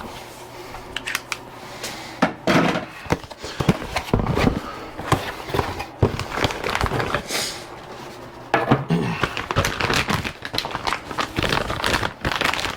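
Plastic filament packaging crinkling and a filament spool knocking as it is handled, in irregular spells of rustles and clicks with a lull in the middle.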